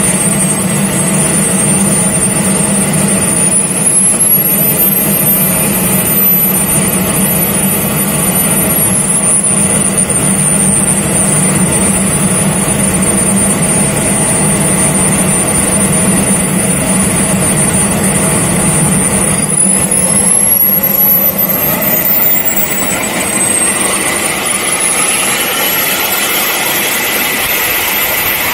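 Twin jet engines of a radio-controlled A-10 model jet whining at idle, the pitch rising and falling back once a few seconds in. Over the last several seconds the whine climbs steadily as the engines spool up for the takeoff roll.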